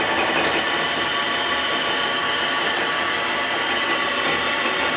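1968 Hardinge TFB toolroom lathe running, its variable-speed drive being pushed faster so the spindle speed climbs: a steady mechanical whir with a hum of several steady tones.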